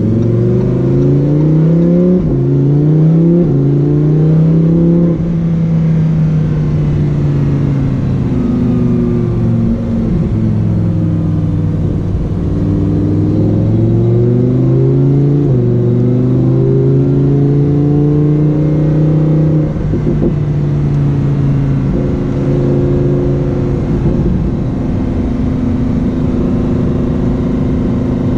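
Lamborghini Huracán Performante's V10 engine pulling through the gears. Its pitch climbs and drops back at each upshift in the first few seconds, eases down, climbs again through another shift, then holds a steady cruise.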